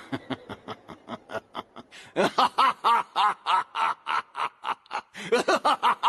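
A man's voice-acted laughter. It starts as a quiet snicker through clenched teeth, then about two seconds in breaks into loud, rapid open-mouthed laughing, about six 'ha's a second, with a brief catch of breath about five seconds in.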